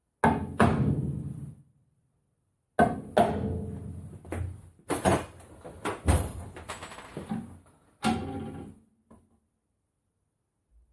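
Hammer striking a centre punch into a metal plate clamped in a vise, marking hole positions for drilling. Sharp metallic strikes, each ringing on afterwards: two close together at the start, then several more spaced over the next few seconds.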